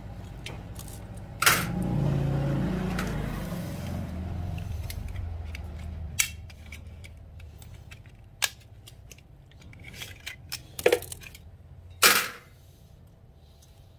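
Wire cutters snipping the wiring of a sheet-metal fluorescent light fixture, with scattered sharp clicks of metal parts and tools, the loudest about a second and a half in and near the end. A low rumble swells and fades over the first few seconds.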